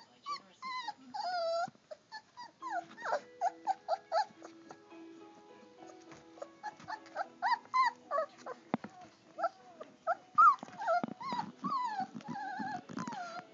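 Three-week-old German Shorthaired Pointer puppies whimpering and yipping as they play, many short cries that rise and fall in pitch, busiest and loudest toward the end.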